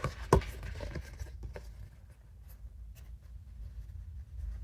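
Oracle cards being handled on a table: a sharp tap about a third of a second in, then a few lighter clicks and rustles that fade, leaving a quiet room hum.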